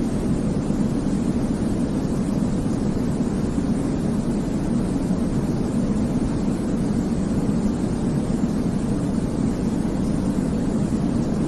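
Steady sleep-aid white noise: a constant, deep rushing hiss with most of its weight low down, like the hum of an airplane cabin, never changing.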